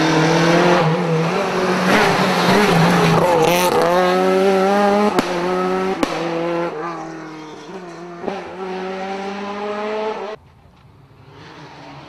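Renault Clio rally car at full throttle, its engine revving hard, the pitch climbing and dropping with each gear change, with two sharp cracks about five and six seconds in. It fades as the car pulls away, and a little after ten seconds it cuts to a much fainter engine sound.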